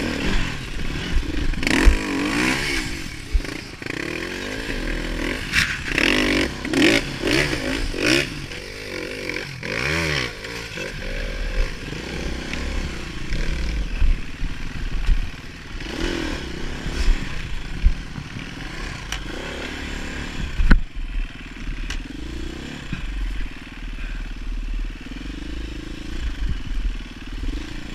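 KTM enduro dirt bike's engine revving up and down as it is ridden over rocky ground, with clattering knocks of chassis and stones. The revving is hardest over the first ten seconds or so, then the engine runs more gently. Sharp knocks come about two seconds in and again around twenty-one seconds.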